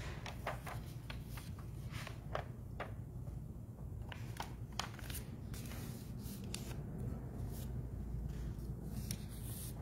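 Irregular light clicks, rustles and rubbing as the communion chalice, paten and linens are handled and cleaned at the altar after communion, over a steady low hum.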